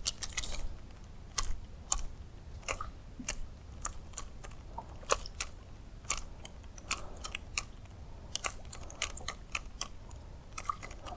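Fishing reel and rod clicking as a topwater lure is twitched back across the water: sharp, irregular clicks, about two or three a second, over a faint low rumble.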